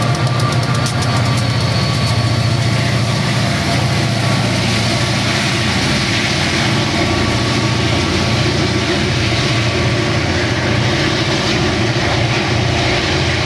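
Norfolk Southern diesel locomotives running steadily as a freight train rolls along the track. A quick series of wheel clicks over the rails comes near the start, and wheel and rail noise grows over the second half.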